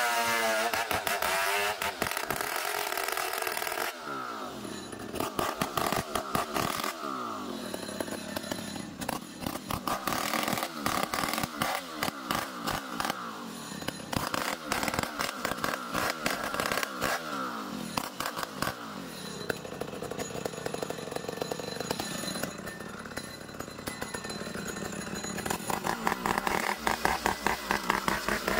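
Petrol engine of a homemade sawing machine running while cutting ulin (ironwood) into beams, its engine speed dropping and picking up again several times as the blade bites into the wood.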